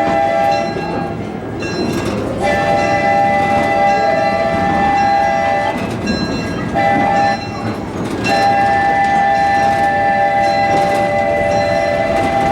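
A 0-4-0 steam locomotive's chime whistle blows several notes at once in the pattern long, long, short, long: the grade-crossing signal. Underneath is the running train's rumble and clatter.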